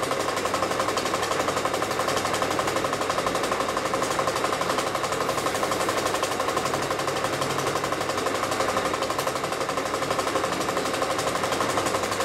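Film projector running: a steady, rapid mechanical clatter with a constant motor hum beneath it.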